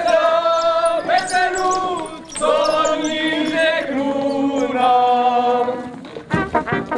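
Voices singing a Moravian folk song in long held notes. Near the end there is a quick run of sharp knocks.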